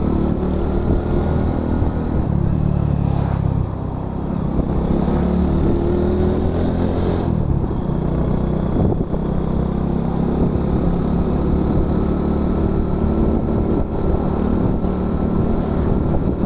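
Motorcycle engine running while riding, with wind rushing over the microphone; the engine eases off briefly about four seconds in, then pulls again.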